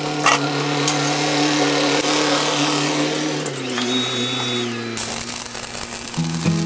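Electric power tool running with a steady motor hum and hiss. Its pitch drops a little about halfway through, and the sound changes abruptly near the end.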